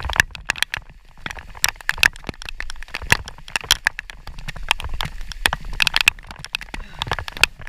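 Rain falling, heard as many sharp, irregular ticks of drops striking close by, over a steady low rumble.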